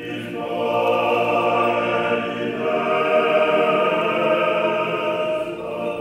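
A choir singing slow, sustained chords that swell in at the start, the harmony shifting about halfway through.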